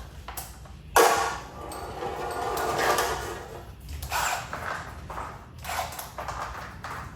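Metal garage-door hardware scraping and clanking as it is worked. A sudden clank about a second in leads into a few seconds of rolling, scraping sound, followed by several shorter scrapes and knocks.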